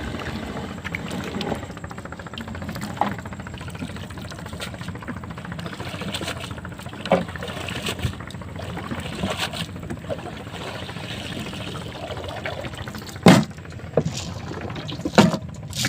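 Water pouring and trickling from a fishing net being pulled into a small boat, with a few sharp knocks, the loudest near the end.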